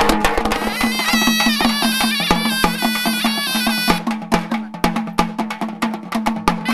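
Traditional Indian folk music: fast, driving hand-drum strokes over a steady low drone, with a high, wavering horn melody that plays for the first few seconds and then drops out, leaving the drums.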